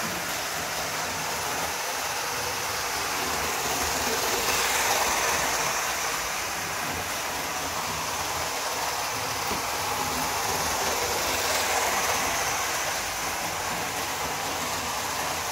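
Hornby OO gauge InterCity 125 model train running on its track: a steady whir of the motor and wheels on the rails, swelling a little twice, about four seconds in and again near twelve seconds.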